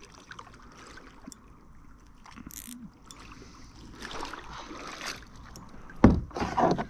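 Water lapping faintly around a kayak, then a sudden loud burst of noise about six seconds in, followed by a few more bursts.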